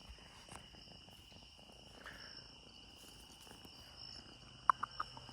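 Faint, steady night chorus of crickets, a continuous high-pitched trill, with a few soft clicks just before the end.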